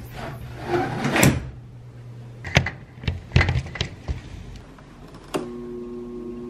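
Handling knocks and the clicks of a plug being pushed into a power strip. About five seconds in, a window air conditioner switches on with a click and settles into a steady hum.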